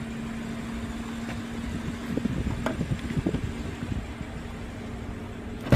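Steady low mechanical hum over background noise, with a few faint knocks and rustles around the middle.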